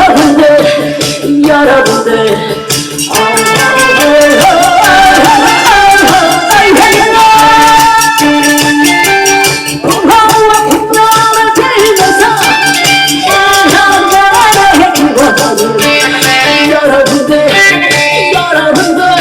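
Loud music with a fast, steady percussive beat under a melody line.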